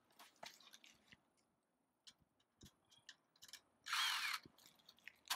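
Cordless drill driving a screw into a furnace vent cap in one short burst about four seconds in, its motor whine falling in pitch as it stops. Before it, only a few faint clicks of handling.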